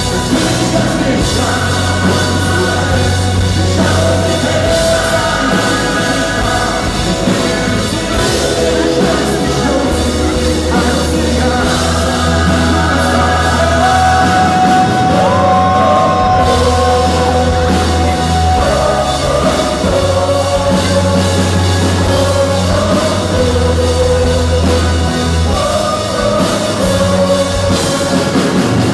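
Live pop-rock band with electric guitar, bass and drums, a lead singer and a gospel choir singing together.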